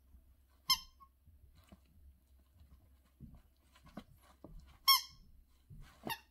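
Rubber squeaky toy squeaking as an English Bulldog puppy chews it: two short, high squeaks, then a shorter one near the end, with soft gnawing sounds between.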